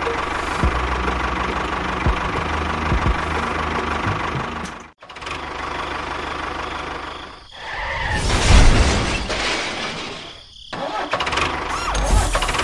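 Mini tractor's motor running steadily with a low rhythmic pulse, broken off by sudden cuts about five and ten seconds in; between the cuts it runs louder and rougher, as under load.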